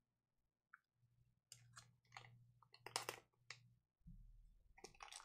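Plastic wrapper of a trading-card pack crinkling and tearing open by hand in a run of short crackles, loudest about three seconds in, with more starting near the end; the tear goes badly, a rip that didn't go cleanly.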